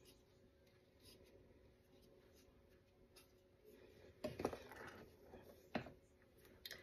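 Near silence, then from about four seconds in, faint scraping and a few light knocks of a wooden spoon stirring thickening strawberry jam mixture in a glass bowl.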